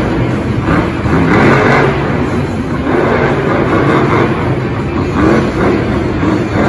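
Monster truck engine running loud and revving, its pitch rising and falling.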